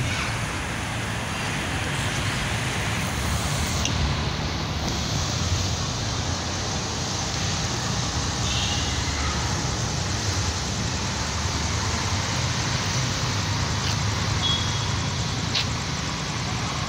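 Mitali Express passenger train passing: a steady rumble of coaches rolling on the rails, with a few faint clicks.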